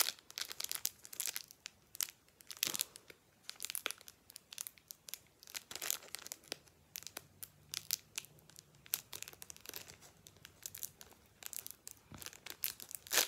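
Foil wrapper of a Pokémon trading-card booster pack crinkling and tearing as it is worked open by hand: a run of irregular sharp crackles and rips.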